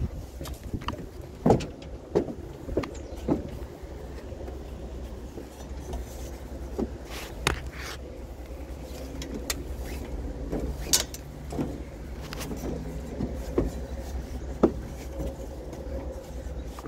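A vehicle's engine running as a steady low rumble, with scattered sharp knocks and clanks over it every second or so.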